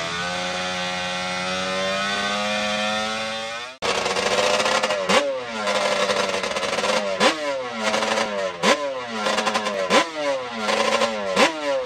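Yamaha Banshee drag quad's two-stroke twin engine running at a steady high idle, then, after a sudden break about four seconds in, revved in sharp repeated throttle blips, roughly one a second.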